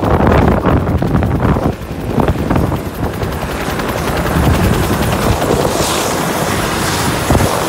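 Bell 205 helicopter running on the ground with its main rotor turning, a steady turbine sound with a rapid regular beat of the blades. Wind buffets the microphone in gusts over the first couple of seconds.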